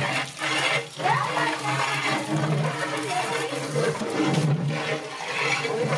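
Spices and chillies sizzling in hot oil in a large aluminium cooking pot while a long-handled ladle stirs them, with a steady low hum beneath.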